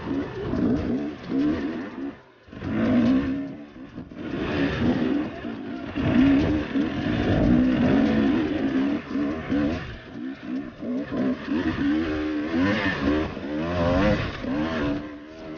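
Two-stroke engine of a Husqvarna enduro motorcycle revving hard and unevenly, the pitch rising and falling with constant throttle blips. The throttle is shut briefly about two seconds in.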